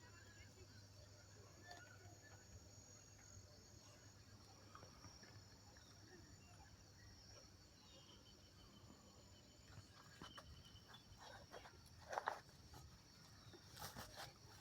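Faint, steady high-pitched chirring of insects. A few knocks and rustles come in the last few seconds, the loudest about twelve seconds in.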